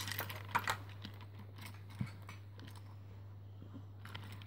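Plastic Lego pieces being handled and pressed together on a baseplate: a few light clicks and taps in the first two seconds, then quieter, over a low steady hum.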